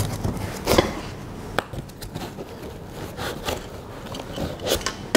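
Handling noise from 3D printer parts being lifted out of a cardboard shipping box: irregular knocks, clicks and scrapes of hard parts against each other and the box.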